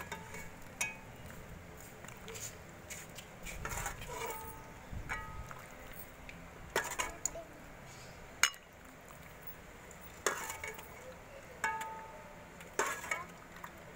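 Metal ladle clinking and scraping against an aluminium cooking pot and a glass bowl as curry is ladled out. The clinks come irregularly, about eight of them, several with a short ring.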